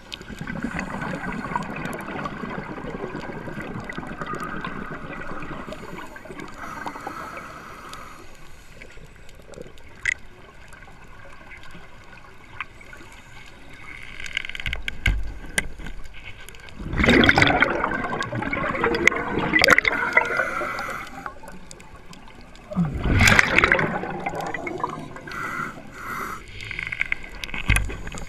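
Water rushing and gurgling around an underwater camera as the diver moves and handles a speargun, with two loud surges in the second half and a few low thuds.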